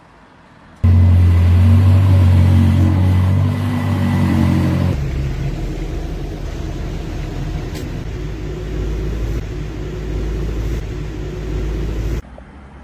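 A motor vehicle's engine running loud and steady, starting suddenly about a second in. It changes abruptly to a deeper rumble about four seconds later and stops suddenly near the end.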